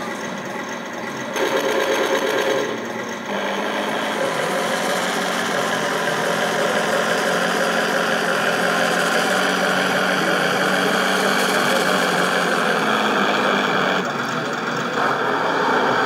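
Radio-controlled model tank running: a steady mechanical whine of its drive motors and gearing with the rattle of its tracks, changing a little in level near the start and again near the end.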